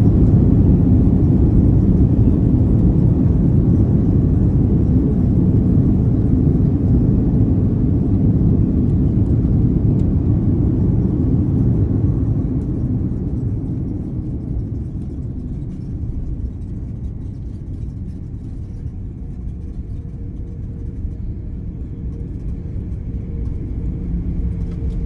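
Airbus A340-600 landing rollout heard from inside the cabin: a loud, steady low rumble that fades about halfway through as the jet slows on the runway. A faint steady hum is left near the end.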